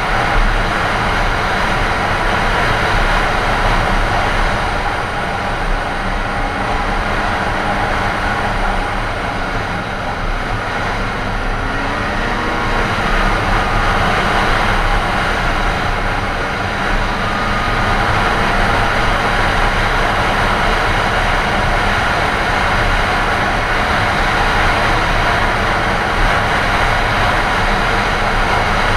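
Snowmobile engine and track running steadily at trail cruising speed, heard from the rider's seat.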